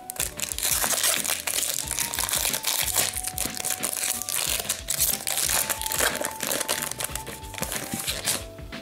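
Foil hockey card pack wrapper crinkling as it is torn open and the cards are pulled out, stopping just before the end. Quiet background music plays underneath.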